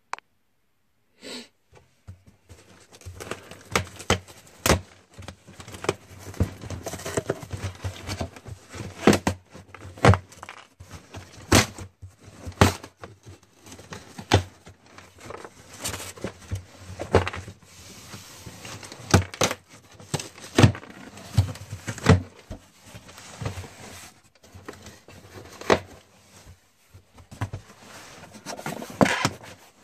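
A large cardboard shipping box being torn open by hand: repeated ripping and sharp cracking of cardboard and packing tape, starting about two seconds in, with crinkling of brown kraft packing paper as the flaps come open.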